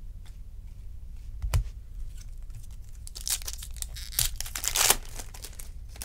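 Glossy Topps Chrome baseball cards being flipped and slid against one another in the hands, with a short knock about one and a half seconds in and a louder run of rustling and sliding from about three to five seconds in, over a steady low hum.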